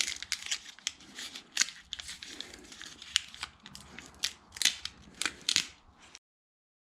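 Handling noise of the tyre plug kit's small tools and packaging: irregular sharp clicks and crinkly rustling. It stops abruptly about six seconds in.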